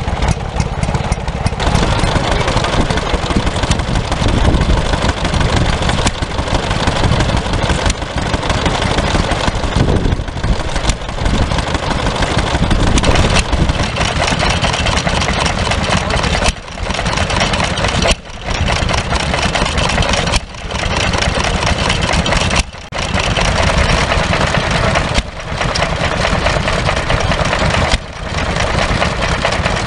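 Small vintage single-cylinder stationary engines running steadily, one after another. In the second half the sound drops out briefly about every two seconds.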